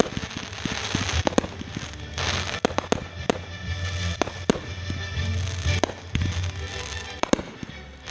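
Fireworks going off in quick succession: many sharp bangs and pops over continuous crackling and a low rumble.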